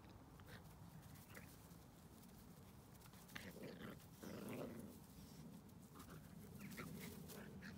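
Two small dogs play-fighting, a puppy and an adult, with faint play growls that are loudest around the middle.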